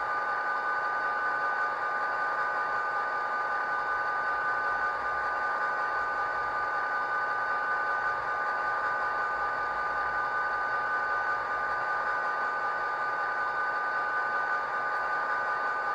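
ESU LokSound sound decoder in a KATO HO scale SD45 model locomotive playing a diesel engine sound through its small onboard speaker, running steadily. A steady high tone sits over the engine sound without changing.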